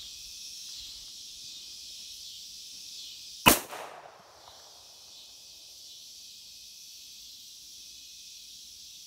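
A single 9mm pistol shot from a Glock 19 about three and a half seconds in, with a short echo trailing off.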